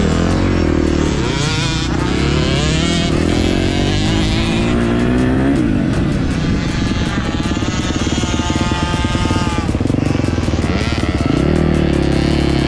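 Motocross bike engines accelerating hard through the gears. The pitch climbs and drops back at each shift, about three times.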